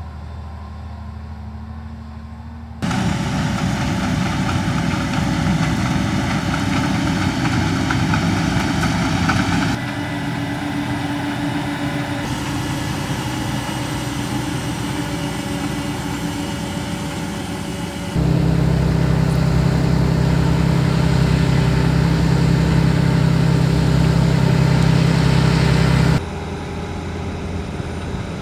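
Heavy farm machinery at work in a potato harvest: tractor engines and potato harvesting equipment running steadily. The sound changes abruptly several times as it cuts between machines, and one stretch has a strong steady engine drone.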